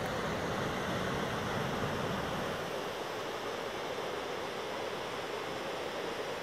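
Rushing white water of the Krka river's rapids, a steady hiss. A low rumble underneath fades away about two and a half seconds in.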